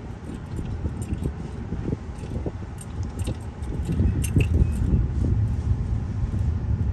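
Low rumble of a car moving slowly in traffic, heard from inside the cabin, with many small rattles and clicks scattered through it.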